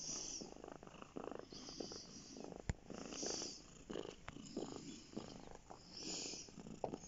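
Domestic cat purring close up, the purr swelling and fading with each breath, with rustling of fur against the microphone and one sharp click a little before halfway.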